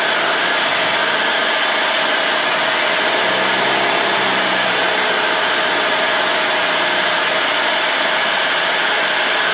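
Cessna 172 cockpit noise from the engine and propeller, heard through the pilot's headset microphone as a steady hiss-like drone with a few fixed tones in it. The airplane is on final approach with the power reduced.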